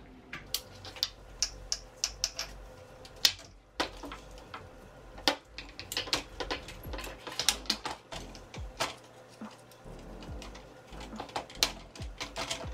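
Irregular clicks and clacks of metal and hard plastic as a sling is fitted to an AR-15 rifle and the rifle is handled on a stone tabletop.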